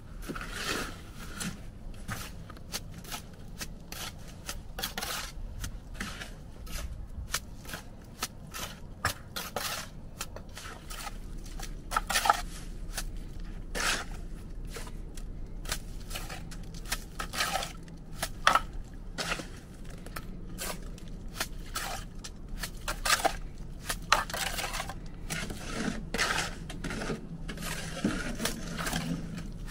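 Steady, irregular scraping and clicking from hands working with tools or materials, with a few sharper knocks about twelve and eighteen seconds in.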